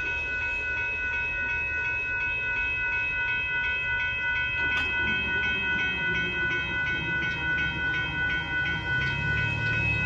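Railroad grade-crossing warning bell ringing with rapid, evenly repeated dings over a steady high ring while the crossing lights flash. A sharp click sounds about five seconds in, as the gate arms start to rise, and a low rumble builds in the second half.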